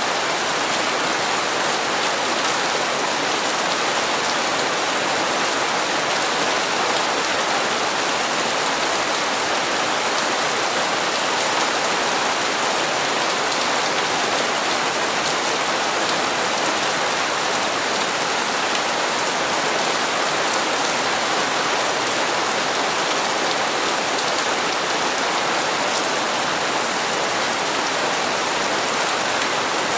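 Steady rain falling, an even hiss of many drops hitting hard surfaces.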